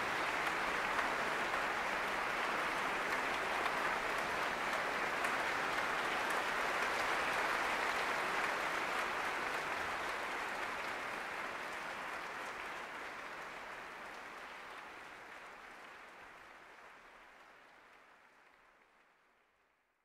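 Concert hall audience applauding, a dense even clapping. It fades out over the second half until it is gone.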